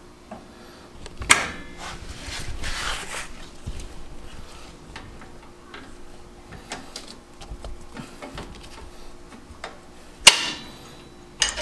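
Metal hand tools clinking and knocking on a truck's rear brake and axle parts: scattered clicks, a short rustling scrape about two seconds in, and a sharp metallic clank near the end.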